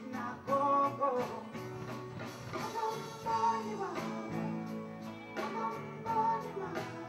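Background song: a voice singing over guitar and a steady beat.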